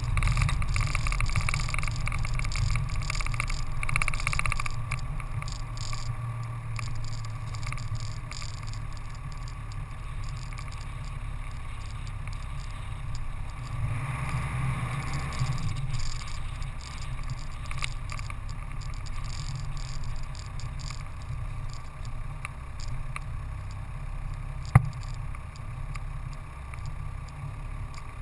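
Vehicle driving along a dirt track: a steady low rumble of engine, tyres and wind, a little louder in the first few seconds, with one sharp click near the end.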